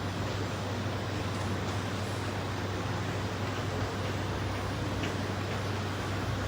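Steady low rumble with an even hiss over it and a few faint clicks.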